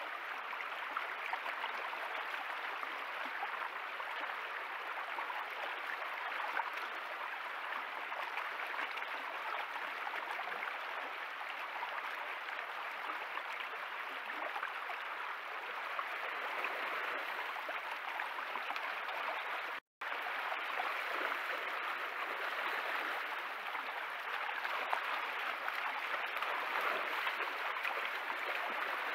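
Rain-swollen stream rushing steadily over its bed, with a brief dropout about two-thirds of the way through.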